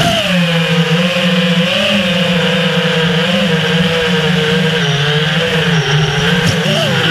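Motors and propellers of a 5-inch freestyle FPV quadcopter (T-Motor LF40 2450Kv motors, T-Motor 5143 props) buzzing in flight, picked up by the onboard action camera; the pitch wavers gently with throttle and dips briefly near the end.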